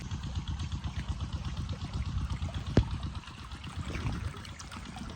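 Diesel engine driving an irrigation water pump, running with a steady low pulse, while water pours and splashes from the outlet. One sharp knock sounds near the middle.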